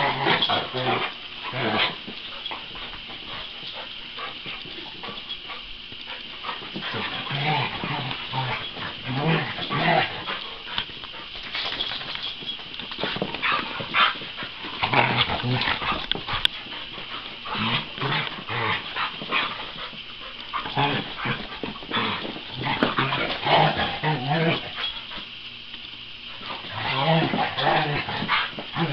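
Two dogs play-fighting: irregular scuffling and tussling, with dog vocalisations and occasional barks.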